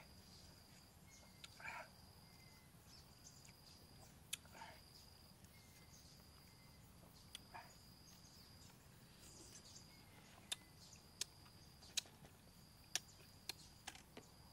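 Quiet mouth sounds of a man eating sour green lemon: a few short sucks and slurps, then several sharp lip or tongue clicks in the second half. Behind them a faint high insect call repeats in pulses of about a second.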